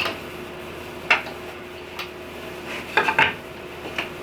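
Light clicks and clinks of wood and metal parts being handled on a table saw: a tapering jig and board being set in place. There are separate knocks about a second apart, with two close together about three seconds in, over a faint steady hum.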